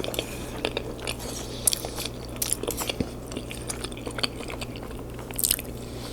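Mouth sounds of eating: chewing with irregular short wet smacks and clicks, over a faint steady low hum.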